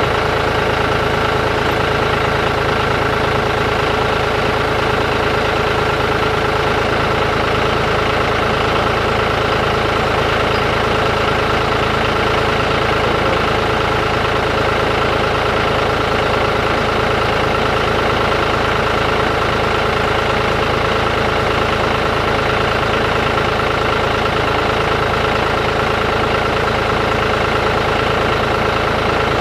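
A machine running at a constant speed: a steady hum with several fixed tones over a low rumble, unchanging throughout.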